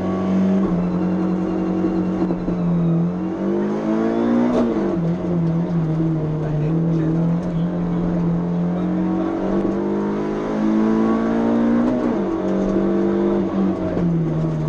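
Suzuki Swift PS16 rally car's 1.6-litre four-cylinder engine heard from inside the cabin, pulling hard at high revs. Its pitch holds steady for long stretches, twice climbs and then drops sharply, like upshifts.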